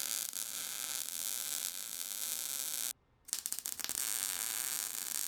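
MIG welder laying beads on steel: two runs of steady hissing crackle, the first about three seconds long, then a short pause and a second run.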